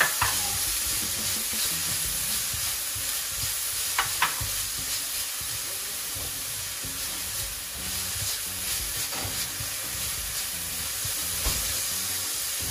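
Chopped vegetables (celery, long beans, red sweet pepper) sizzling steadily in oil in a frying pan as they are stirred, with a few sharp knocks of the utensil against the pan.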